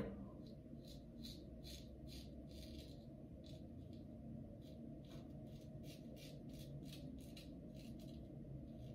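A single-edge safety razor scraping through lathered stubble against the grain in short, quick strokes, about two a second. The strokes are faint, over a steady low room hum.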